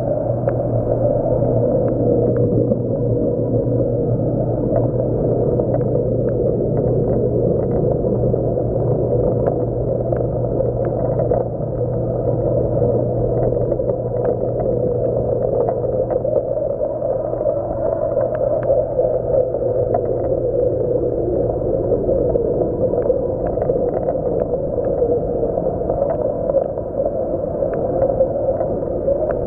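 Steady low hum of aquarium pumps with water churning and gurgling, with faint scattered ticks.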